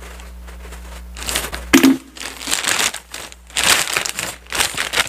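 Orange plastic shipping pouch crinkling in irregular bursts as it is cut open with scissors and pulled apart, starting about a second in.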